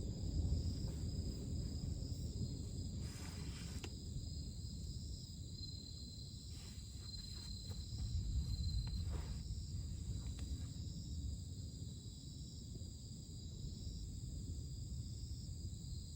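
Night ambience of insects chirring steadily over a low, even rumble of surf.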